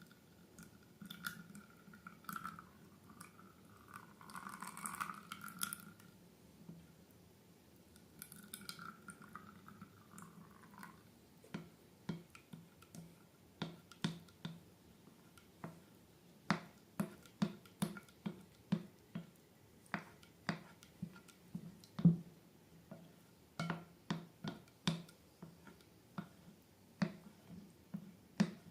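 Slime being worked by hand: squeaky rubbing and squishing for the first ten seconds or so, then a run of short wet clicks and pops, about one or two a second.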